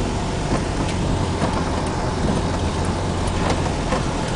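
A vehicle driving along a muddy dirt road, heard from inside the cabin: a steady engine and road rumble, with a few faint knocks.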